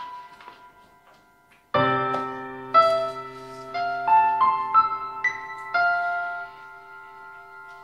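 Solo piano music, slow and soft: a low chord is struck about two seconds in, then a slow line of single higher notes follows, left to ring and fade toward the end.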